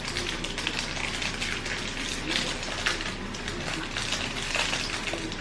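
Crinkling and rustling of a sweet wrapper as a fruit toffee is unwrapped, a dense run of small crackles.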